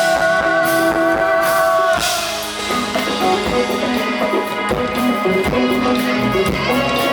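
A rock band playing live with no vocals. A held chord rings for about two seconds, then a cymbal crash and drums and guitars carry on with a busier beat.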